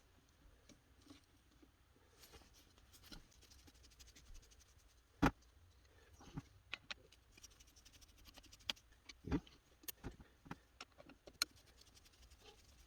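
Scattered light clicks and taps of a screwdriver and small metal and plastic parts being handled while dismantling a VCR's tape transport mechanism. The sharpest knock comes about five seconds in, and a few more come around nine to ten seconds.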